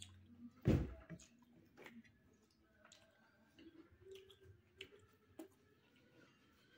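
Eating sounds: a person chewing and mixing rice and mutton curry by hand on a steel plate, with scattered soft clicks and one dull thump just under a second in.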